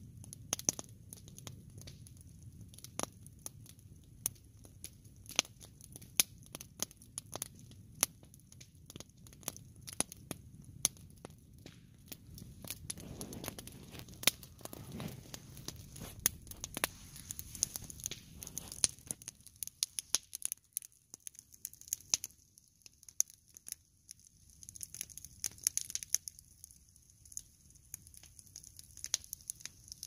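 Log campfire burning, with irregular sharp crackles and pops from the burning wood.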